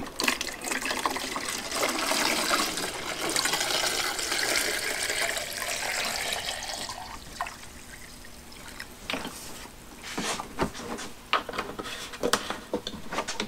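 Rust remover soak poured from a plastic jug into a clear plastic jar holding a rusty wrench: a steady splashing pour that trails off about seven seconds in. A few light knocks and taps follow near the end.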